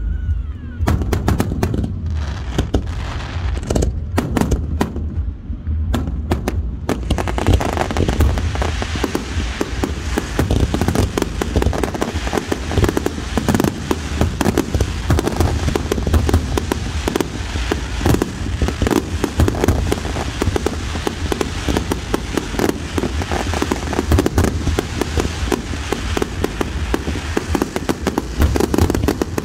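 Aerial fireworks display: separate shell bursts for the first several seconds, then from about seven seconds in a dense, unbroken volley of rapid bangs.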